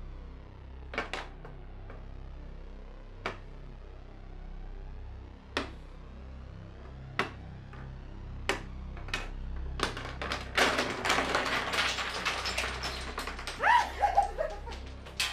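Wooden chess pieces set down one at a time on a wooden chess board, single sharp clicks a second or two apart. About ten seconds in, this turns into a dense clatter for several seconds as the pieces are knocked over and tumble across the board.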